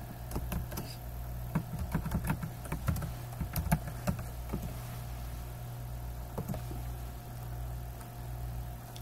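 Computer keyboard keys clicking in a quick irregular run as a password is typed, then one more click about six seconds in, over a steady low hum.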